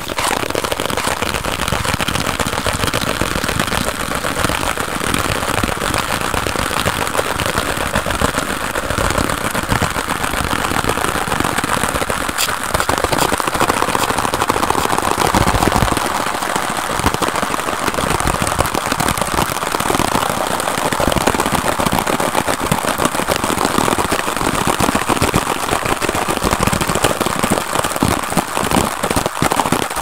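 Very fast finger tapping and scratching on a small packet and a cardboard box, mixed with hand sounds, packed into a dense, continuous crackling patter.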